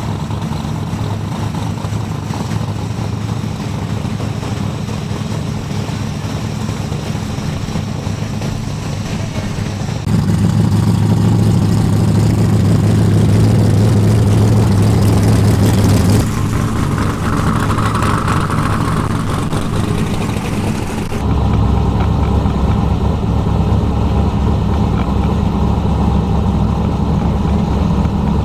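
Drag-race engines idling steadily at the starting line, chiefly the nitrous small-block Ford V8 in a Fox-body Mustang. The sound jumps abruptly in level twice, at about ten and twenty-one seconds in.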